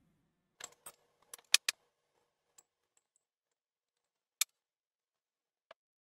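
Light clinks and taps of a small glass mixing bowl and cosmetic containers being handled while oil and cream are mixed. There is a quick cluster of clinks in the first two seconds, then a few scattered ones.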